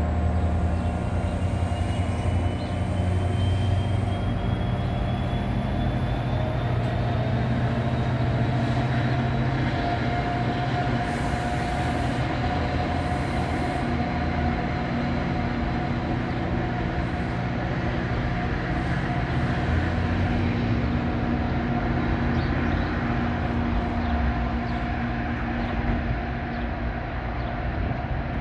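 NJ Transit commuter train of Comet coaches pulling out of the station: a steady rumble of wheels rolling over the rails as it accelerates, with a faint whine rising in pitch over the first several seconds.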